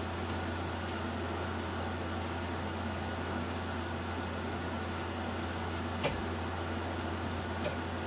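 Steady low mechanical hum with an even hiss, like a running fan or air-conditioning unit, with a sharp knock about six seconds in and a softer click near the end.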